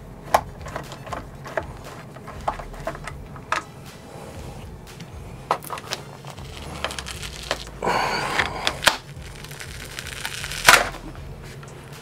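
Light clicks and knocks of hands and tools on an electric unicycle's pedal and shell. Then come two harsh ripping bursts, one about two-thirds through and a louder, shorter one near the end, as a stuck-on foam Clark pad is pulled off the unicycle's shell.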